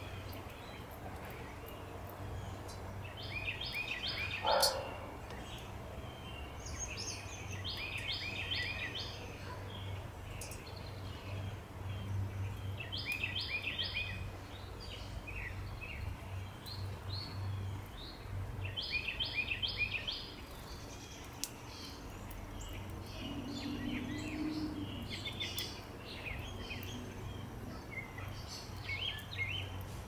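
A songbird sings the same short phrase of rapid repeated notes about every five seconds, over a steady low hum. A brief thump about four seconds in is the loudest sound.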